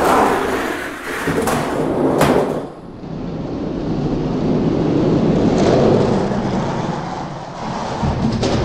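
Hot Wheels die-cast monster trucks rolling fast down plastic track, a steady rumble broken by a few sharp clacks as the toys hit track joints and bumps, the loudest two about a second and a half and two seconds in.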